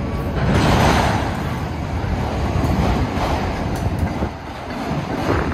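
Freight train of enclosed autorack cars rolling past: a steady rumble of steel wheels on the rails, swelling briefly about a second in.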